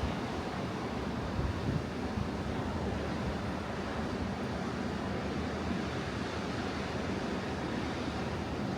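Atlantic surf breaking and washing up the beach in a steady wash of noise, with wind rumbling on the microphone in a brief gust about a second and a half in.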